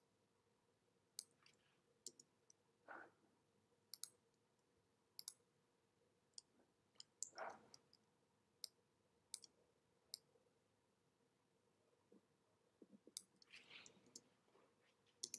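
Faint, scattered clicks from working a computer while editing in Photoshop, about fifteen at uneven spacing, with a few softer, longer sounds between them.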